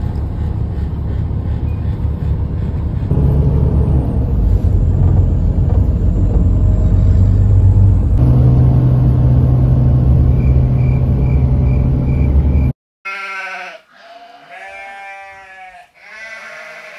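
Steady low rumble inside a moving passenger vehicle, broken by a couple of abrupt edit cuts. It stops suddenly and is followed, after a short break, by several short pitched sounds that waver up and down.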